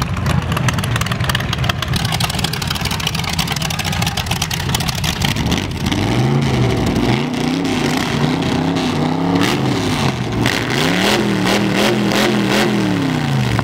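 An engine runs with a steady, even rumble for about five seconds. Then a rat rod engine with open, unmuffled stacks is revved in three long swells, the pitch climbing, holding and falling each time.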